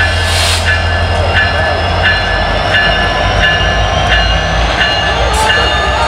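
Diesel locomotives led by an EMD SD70M-2 running slowly, a loud steady deep engine rumble. A bell rings over it at about one and a half strokes a second.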